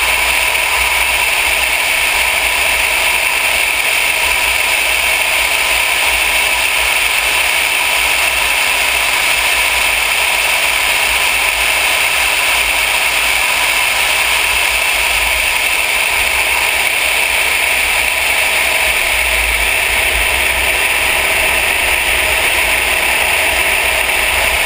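Mercedes-Benz E63 AMG driving fast at a steady speed: an even rush of wind and road noise with no change in pitch, and a low wind rumble on the microphone.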